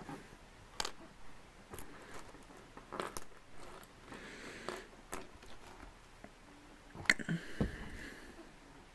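Plastic LEGO bricks being handled and fitted together: scattered sharp clicks and taps, the loudest about seven seconds in.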